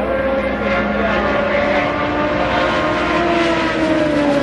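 Race car engines running at speed on the track, several engine tones at once, their pitch sliding slowly down as the cars pass. Near the end a Mazda DPi prototype sweeps past.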